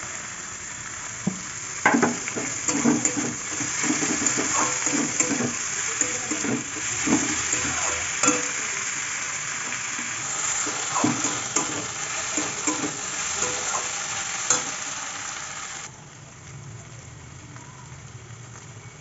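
Onions, curry leaves and diced potato sizzling in oil in a kadai while a steel spatula stirs them, with repeated scrapes and knocks of the metal spatula against the pan. About 16 seconds in the sizzle drops suddenly to a quieter, even frying.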